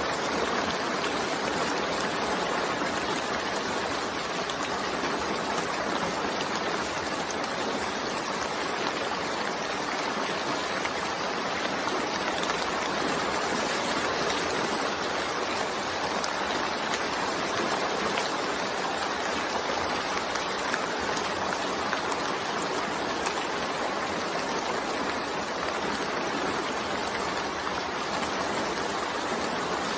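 Steady rain falling, a continuous even hiss with no separate drops or thunder standing out.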